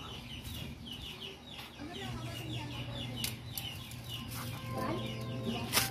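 Backyard chickens clucking, with rapid high chirps repeating throughout, and a single sharp knock near the end.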